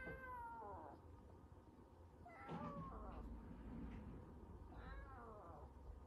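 Kitten meowing three times, each call falling in pitch, about two seconds apart. It is crying, seemingly because it does not want to be kept isolated alone.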